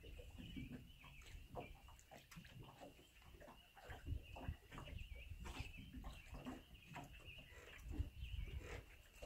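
A faint, continuous high-pitched chorus, most likely frogs calling across the water, with irregular small knocks and splashes of water against a boat's hull and a low rumble underneath.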